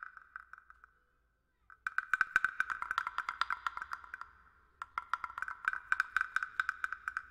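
Rapid, even tapping of a pitched percussion instrument in the film's original score, about eight to ten strikes a second. The runs break off in a short silence about a second in and dip briefly at about four and a half seconds before going on.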